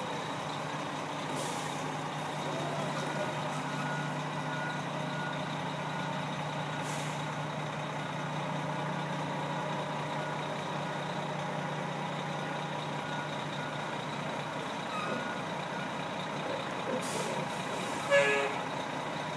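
A fire engine's engine running steadily with a low hum, with a few short hisses now and then. A brief louder sound comes near the end.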